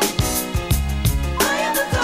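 Background music with a steady drum beat over sustained chords; a singing voice comes in near the end.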